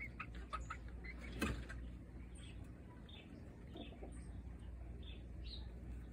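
Young chickens giving short, faint chirps, several in a row about every half second. There are a few light clicks in the first second and a half, the loudest about a second and a half in.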